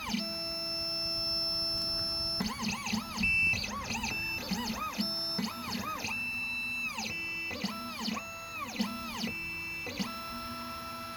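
Xhorse Dolphin key cutting machine's stepper motors whining as it runs its automatic M1 clamp calibration: each move rises in pitch, holds a steady tone and falls away as the axis stops, with a run of short moves between a few longer ones.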